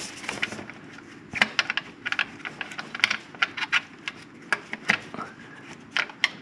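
Hand ratchet wrench clicking in short, irregular runs as the thermostat housing bolts are run down and tightened.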